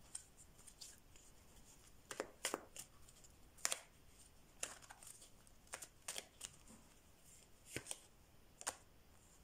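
Tarot cards being handled on a table: faint, irregular clicks and soft rustles, a dozen or so short ones scattered through the stretch.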